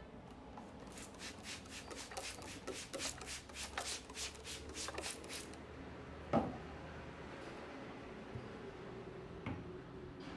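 Hands rubbing in quick, even strokes, about five a second, for several seconds, as in a barber's massage. About six seconds in, a single dull thump, louder than the rubbing.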